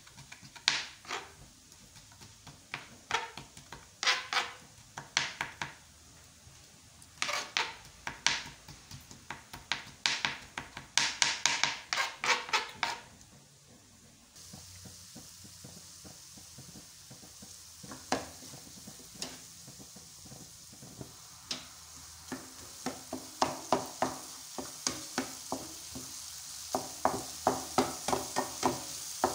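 Knife chopping on a plastic cutting board in quick runs of strokes. About fourteen seconds in it gives way to diced tomatoes sizzling in a frying pan while a wooden spoon stirs them, tapping and scraping the pan, the stirring getting busier near the end.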